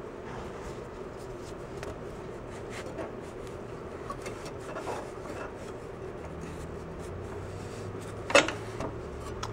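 Fingers rubbing and scraping over the greasy metal of a snowblower's engine base and drive pulley, with small scattered clicks and one sharper knock a little after eight seconds in. A steady hum runs underneath.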